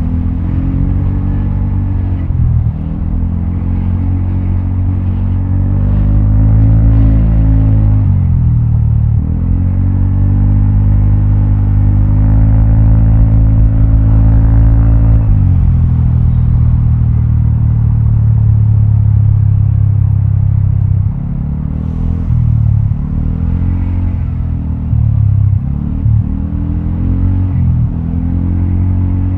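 Vespa automatic scooter's single-cylinder four-stroke engine running through a Prospeed aftermarket exhaust while riding. The revs rise and fall with the throttle, hold high and steady through the middle, then go on and off the throttle in short bursts near the end.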